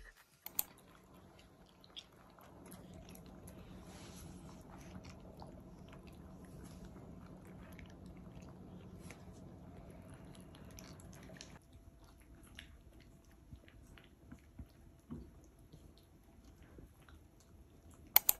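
A dog eating dry kibble: faint, scattered crunching and chewing clicks, with two sharper, louder crunches near the end.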